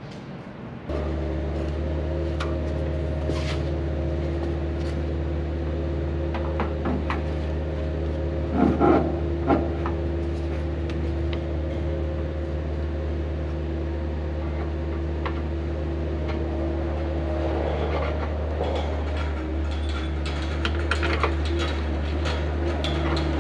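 A steady machine hum with a deep drone, starting suddenly about a second in, with scattered clicks and knocks over it.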